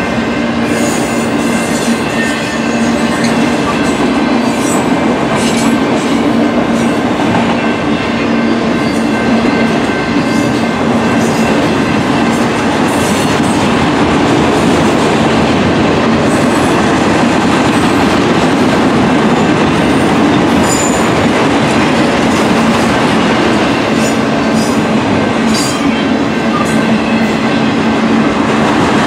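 Union Pacific autorack freight cars rolling past: a loud, steady rumble of steel wheels on the rails, with scattered clicks and rattles as the wheels pass over the rail joints.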